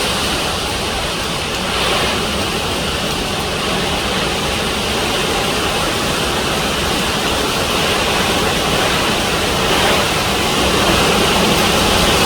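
Hurricane wind and heavy rain: a loud, steady rush that swells in gusts about two seconds in and again near the end.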